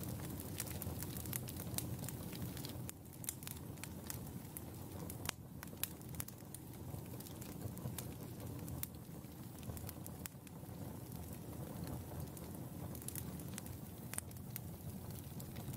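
Wood campfire burning, crackling with frequent sharp pops over a low steady rumble, one louder pop about five seconds in.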